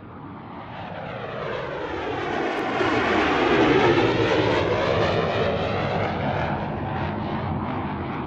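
A loud rushing sound like an aircraft passing overhead. It swells to its loudest about four seconds in, then slowly fades.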